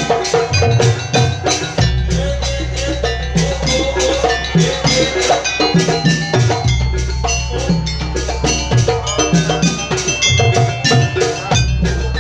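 Jaranan gamelan ensemble music: drums and metallophones in a dense, fast rhythm, with a wavering melody line and a deep gong stroke ringing on about every five seconds.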